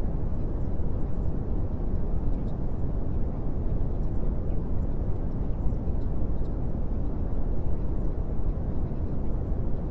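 Steady, deep rumbling noise that stays even, with no pitch, tune or separate events.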